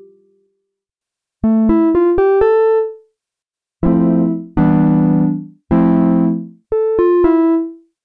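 HY-Poly software synthesizer playing its "HY-Synth Key 02" keys preset. About a second and a half in, a quick rising run of five notes, then three held chords and a short three-note run, each dying away.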